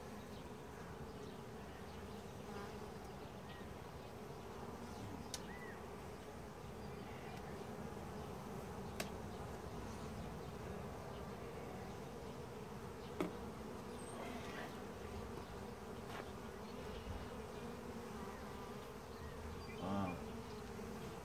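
Honey bees from an open hive buzzing in a steady, dense hum, with a few sharp clicks along the way.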